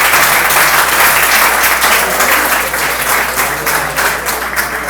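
Audience applauding, a dense stretch of many hands clapping that thins out and fades toward the end.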